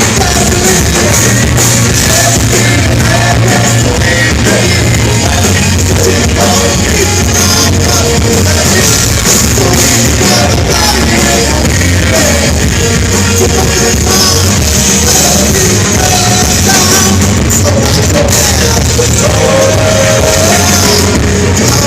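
Alternative rock band playing live with a singer, a dense, loud wall of guitars and low end. The recording sounds poor, overloaded and muddy.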